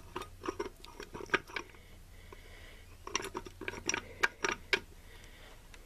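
Light metallic clicks and clinks from steel gears and the main shaft being shifted by hand inside a T-90 transmission case, in two scattered runs of short taps.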